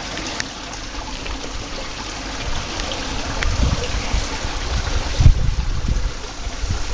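A hard green fruit knocked against the stone tile edge of a pool to crack it open: dull knocks, one sharp and loud about five seconds in, over steady trickling water.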